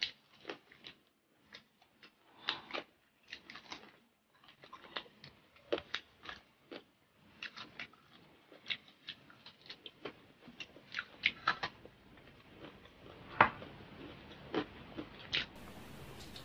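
A person chewing crispy fried pork, with irregular sharp crunches throughout and one louder crunch near the end.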